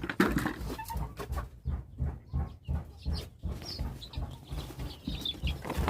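Poultry calling in short high chirps over a run of low thumps, about two or three a second.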